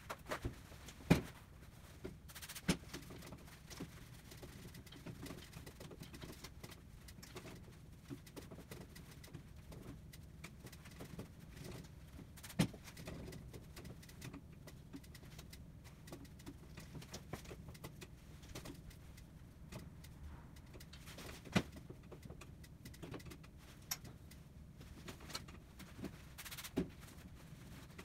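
Scattered sharp clicks and knocks of hands handling a bicycle and cleaning supplies while it is wiped down, over a faint steady low hum.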